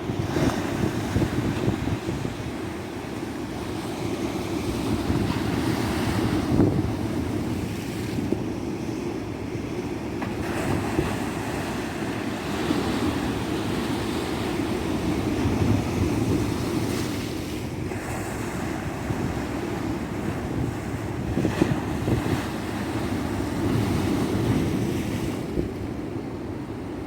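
Ocean surf: waves breaking and washing up a beach in a steady low rumble, swelling every few seconds, with wind buffeting the microphone.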